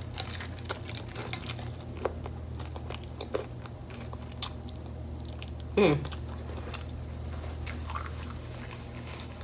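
Close-up chewing and crunching of a hard taco shell, with small crisp crunches and mouth clicks scattered throughout over a steady low hum. About six seconds in, one louder short sound slides down in pitch.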